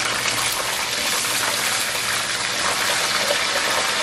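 Panko-breaded chicken frying in a pan of hot oil: a steady sizzle.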